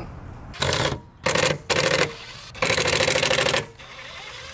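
Cordless impact driver hammering on the screws of a bus headlight panel in four bursts, the last and longest lasting about a second.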